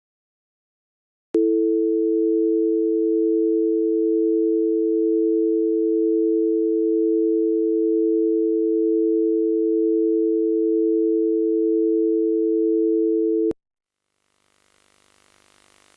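Telephone dial tone: a steady, unbroken two-note tone that starts with a click about a second in and stops with a click about two seconds before the end. A faint hiss rises near the end.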